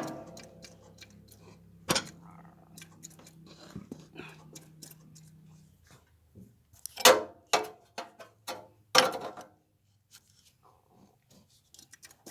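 Sharp knocks and rattles of engine parts being handled: the connecting rods of an opened Briggs & Stratton opposed-twin engine being worked by hand to check for play, with the loudest clatter about seven and nine seconds in. A low steady hum runs under the first half and stops about six seconds in.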